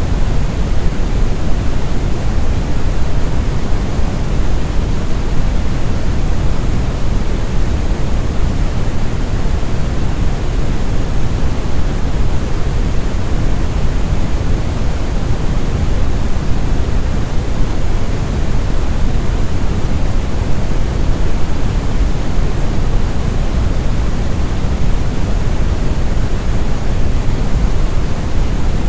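Deep brown noise, also called Brownian or red noise: a steady, smooth rumble with most of its weight in the bass and only a faint hiss above.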